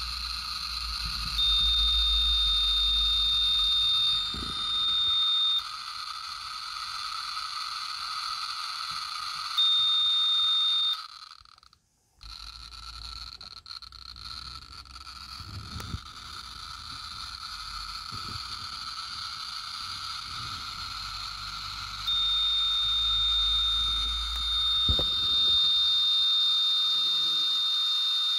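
Geiger counter held against pitchblende uranium ore, counting so fast that its clicks merge into a continuous hissing buzz: a very high count rate, over 500,000 counts per minute. A steady high tone comes and goes over it, and the sound drops out briefly about twelve seconds in before the counting resumes.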